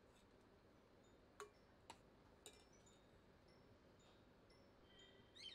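Near silence, broken by three faint, short metallic clinks in the middle: a steel ladle touching the stainless steel pressure cooker. A faint short rising squeak comes near the end.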